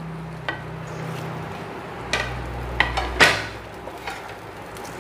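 Potato, pointed gourd and soaked eggplant pieces sizzling in spiced oil in a nonstick frying pan, worked with a spatula, with a few sharp knocks against the pan, the loudest about three seconds in.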